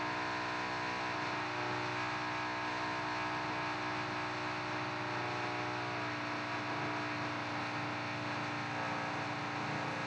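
Steady mechanical whirring hum with several held tones, from construction machinery working upstairs.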